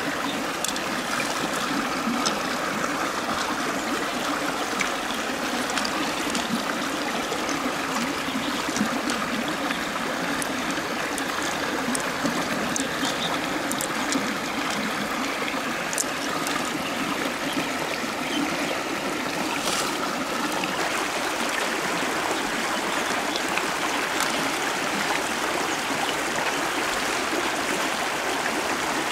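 A shallow stream running steadily over rocks, with a few faint, scattered small clicks.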